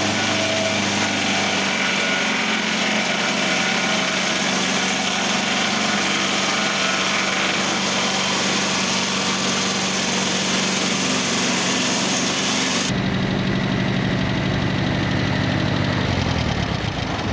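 Portable sawmill's engine running with the noise of a cut going through the log. About two-thirds of the way in the sound changes, and near the end the engine slows down.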